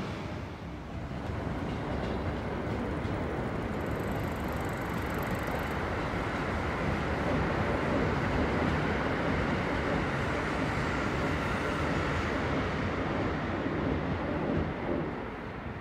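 Electric commuter train running past on the railway, a steady rumble that carries on until it drops away near the end, with a faint high whine for about two seconds around four seconds in.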